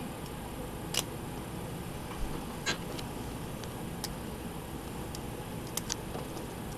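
Small sharp clicks of a homemade pick and tension tool working the pin tumblers of a Master Lock No. 3 padlock, about five irregularly spaced ticks over a steady hiss.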